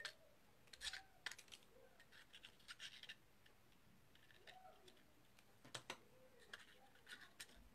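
Faint, scattered scratches and light clicks of a pick tool working inside a handheld paper punch, lining the stamped paper up before it is punched.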